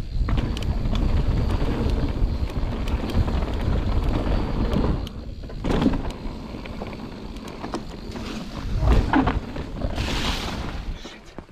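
Mountain bike running down a dirt trail: a steady rumble of wind and tyre noise on the action camera's microphone, with scattered clicks and knocks from the bike rattling over roots. The noise dies down near the end as the bike comes to a stop.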